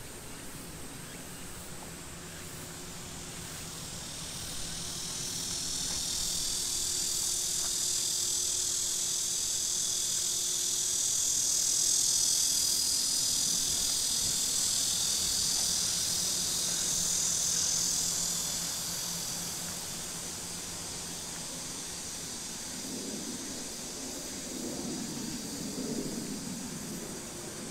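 Outdoor insects calling in a steady high-pitched chorus that swells about four seconds in and fades again after about eighteen seconds.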